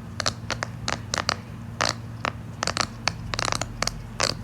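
Jumbo silicone pop-it fidget having its bubbles pushed through, making a quick, irregular run of sharp pops, several a second.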